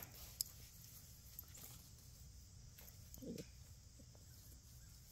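Near silence with faint sounds of puppies moving on grass. A single sharp click comes about half a second in, and a brief low sound about three seconds in.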